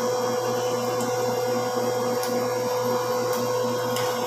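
Steady machine hum with a constant mid-pitched tone, and a few faint clicks.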